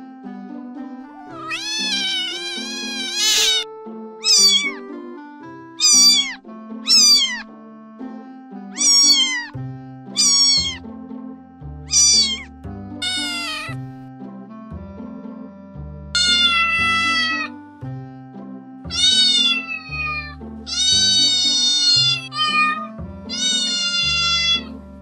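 Cats meowing over and over in high-pitched meows that fall in pitch, short ones at first and longer drawn-out ones in the second half. Background music runs under them, with a low bass beat coming in about ten seconds in.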